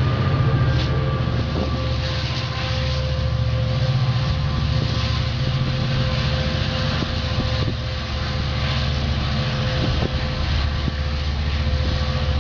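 Metrolink diesel locomotive running as the train pulls out, a steady low engine drone with a held whine above it.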